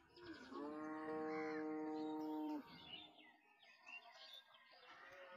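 A farm animal's long call at one steady pitch, lasting about two seconds and stopping suddenly, typical of livestock lowing or bleating on a riverbank.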